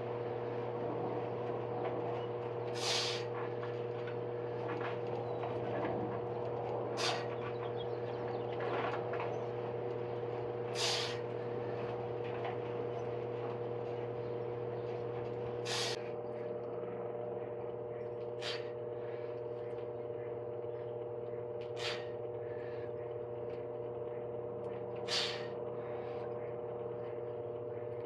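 A person's sharp, forceful exhales, about seven of them, one every three to four seconds, in time with slow pushup reps, over a steady hum.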